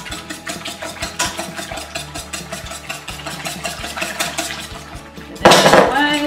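Wire whisk beating eggs into melted butter, sugar and lemon juice in a stainless steel bowl, fast even strokes scraping and tapping the metal. Near the end comes a loud clatter with a brief ring as a bowl is set down.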